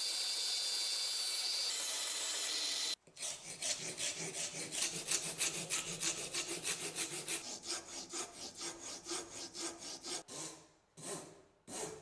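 Bandsaw running steadily as it cuts wooden knife handle scales. About three seconds in it gives way to a hand file rasping back and forth on the wooden handle, about four strokes a second, thinning to a few separate strokes near the end.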